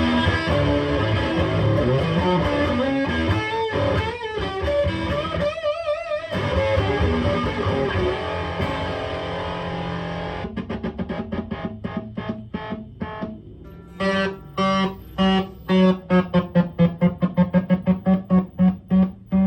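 Electric DiPinto Galaxie guitar played with both pickups together, through its built-in amp out to a 4x12 cabinet. Ringing chords with a wavering pitch bend about six seconds in, then rapid short choppy strums, then loud chord stabs about three a second.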